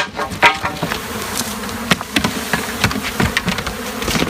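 Honeybee swarm buzzing, a steady drone with many scattered clicks and knocks through it.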